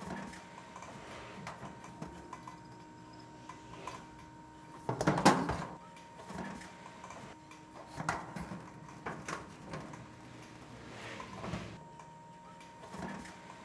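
Red marking pencil scratching short strokes on a COLORBOND steel barge capping flashing, with soft rubs and knocks of the sheet metal; the loudest scrape comes about five seconds in. A faint steady hum runs underneath.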